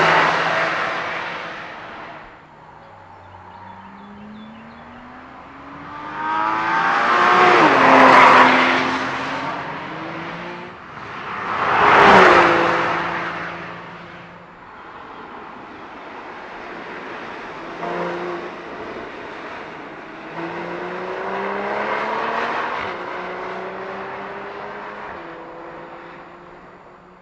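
Porsche 981 Boxster S flat-six engines accelerating hard along a race track and passing at speed, several times. The engine note climbs as each car approaches and drops in pitch as it goes by, the loudest passes about eight and twelve seconds in.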